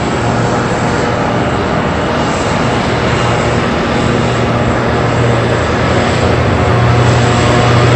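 Pratt & Whitney Canada PT6 turboprop of a Cessna 208B Grand Caravan EX running at taxi power: a steady low propeller drone with a thin high whine over it. It grows slowly louder as the aircraft taxis closer.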